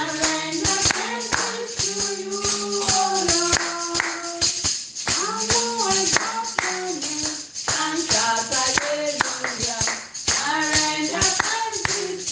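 Worship music: voices singing a sustained praise chorus over a steadily shaken tambourine.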